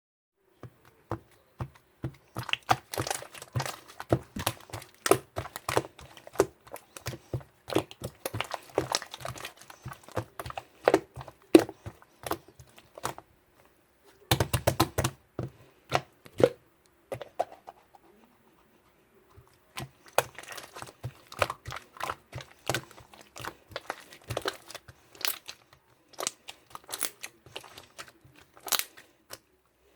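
Rapid, irregular clicks and taps in runs, broken by short pauses about 13 and 18 seconds in.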